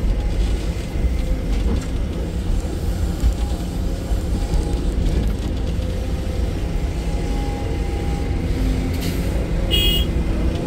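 Excavator's diesel engine running steadily under load while loading trucks, a continuous low rumble. A brief high-pitched squeal sounds near the end.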